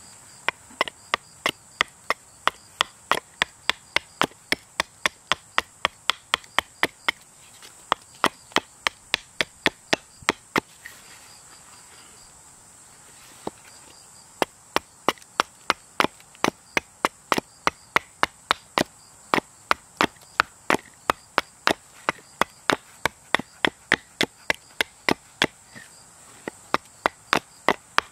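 Small carving hatchet hewing a split wood spoon blank held upright on a chopping block: a quick, even run of light chops, about three a second, stopping for a few seconds midway before going on. The blank is being roughed out into a spoon.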